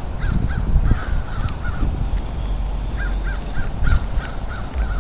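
Crows cawing in quick runs of short, repeated calls, over a steady low rumble.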